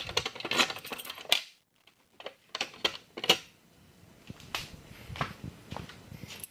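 A run of light, sharp clicks and clatter from small hard objects being handled, then a short pause and scattered single clicks and knocks.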